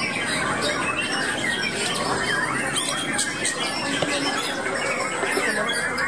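Several caged white-rumped shamas singing at once, with rapid whistled phrases rising and falling and overlapping one another.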